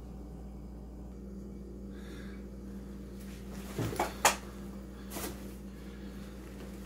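A few short knocks and clacks, a cluster about four seconds in and a single one about a second later, over a steady low electrical hum: kitchen handling noise as the camera is moved to the cast iron skillet on the electric stove.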